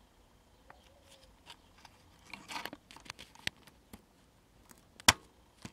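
Scattered clicks, taps and crackly rustling of a radio chassis and its parts being handled on a workbench, with one sharp, loud click about five seconds in.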